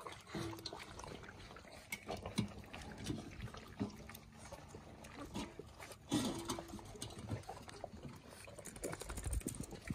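Wirehaired Pointing Griffon puppies lapping and slurping water from stainless steel bowls: a busy run of small wet clicks and splashes, with a few brief puppy vocal noises, one about half a second in and one about six seconds in.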